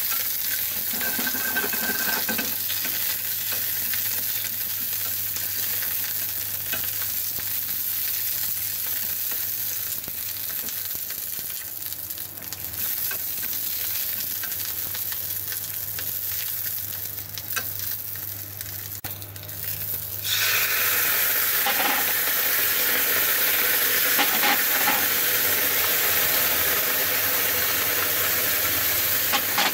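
Shishito peppers sizzling in oil in a frying pan while being turned with chopsticks, with small clicks of the chopsticks against the pan. About twenty seconds in the sizzle suddenly gets louder and brighter and stays so.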